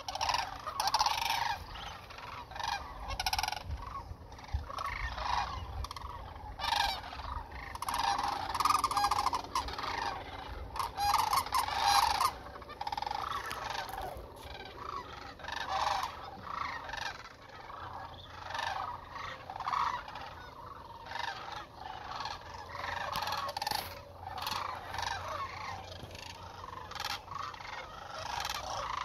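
A large flock of sandhill cranes calling, with many overlapping calls running without a break and rising and falling in loudness.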